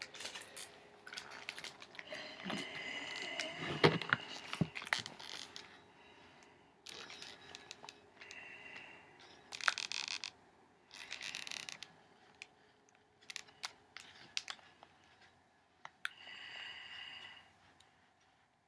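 Glossy magazine pages rustling and scraping as the magazine is held and moved, with scattered sharp clicks and knocks of handling.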